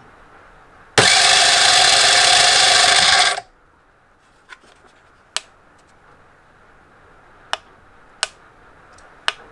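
Electric scooter starter motor spinning a model V-twin engine's flywheel through a 4-to-1 toothed-belt reduction and sprag-bearing clutch. It starts suddenly, runs steadily for about two and a half seconds, and cuts off. Several sharp single clicks follow.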